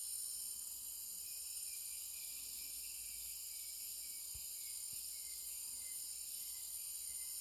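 Steady, high-pitched chorus of rainforest insects, several shrill tones layered over one another without a break.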